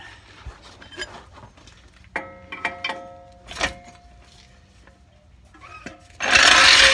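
A floor jack is let down from under the rear suspension, with scattered clicks and a brief ringing metallic squeak about two seconds in. Near the end comes a loud, rough rustling scrape lasting over a second.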